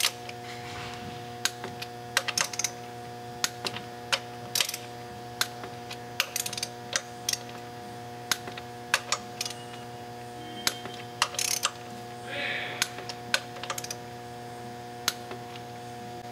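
Scattered sharp clicks from a torque wrench's ratchet as flywheel bolts are tightened in a first pass to about 30 lb-ft, with a few quick clusters of clicks, over a steady low hum.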